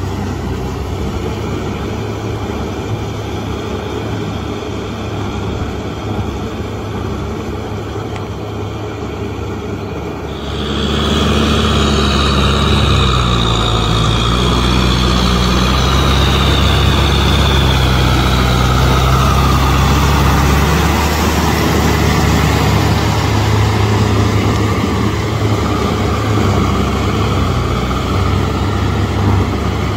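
Tractor's diesel engine running steadily under load while it pulls a rotavator through a flooded, muddy field. The sound gets abruptly louder and closer about a third of the way in.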